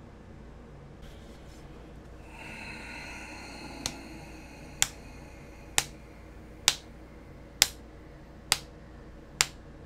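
Sharp, snap-like clicks at an even pace of about one a second, starting about four seconds in, after a brief faint hum.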